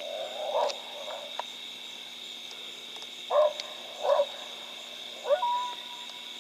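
Coyote vocalizing: four short barks spread over several seconds, the last rising into a steady, held howl note.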